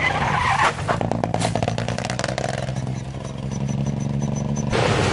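Rally car engine running hard as the car slides off the road onto the grass, with a run of rapid clicks and rattles. The sound cuts off sharply near the end.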